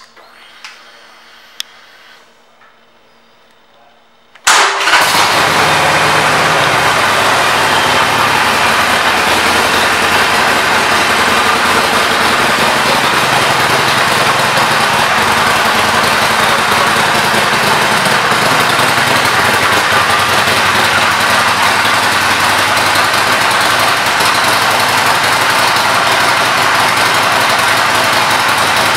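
A 2019 Harley-Davidson Iron 1200's air-cooled V-twin is started about four and a half seconds in: it fires with a sudden loud burst and settles straight into a steady idle.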